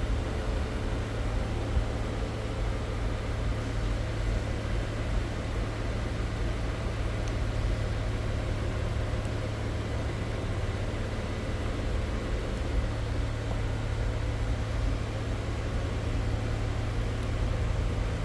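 Range Rover engine idling: a steady low hum with an even rush of noise over it, unchanging throughout.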